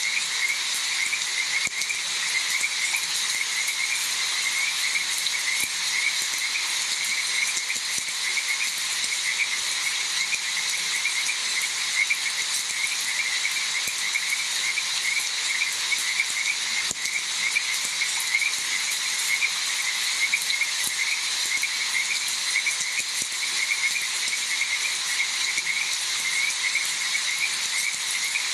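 Frogs croaking in a steady chorus of short, rapidly repeated calls over a continuous even hiss.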